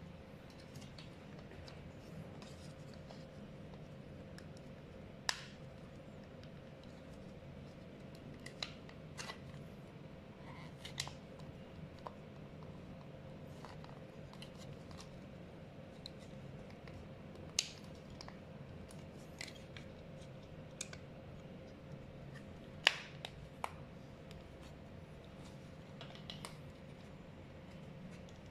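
Scattered sharp clicks and taps of plastic and metal parts of an electric scooter's headlight assembly being handled and fitted together, about seven in all, the loudest a little past the middle, over a steady low hum.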